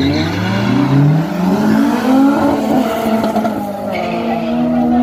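Drag-racing cars launching from the start line: engines revving hard and rising in pitch, dropping back at a couple of gear changes, then holding a steady note as the cars pull away down the strip, with tyre squeal at the launch.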